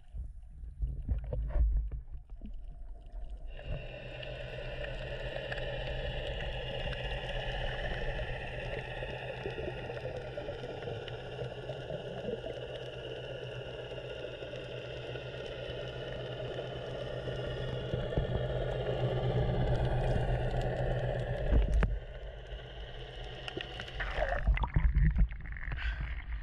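A passing boat's motor and propeller heard underwater: a loud, steady drone over a low hum. It starts a few seconds in and cuts off about 22 seconds in.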